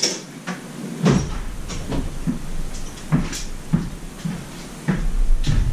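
Irregular knocks, clinks and clatters of hand tools being rummaged through and handled, with footsteps; a low rumble comes in at about five seconds.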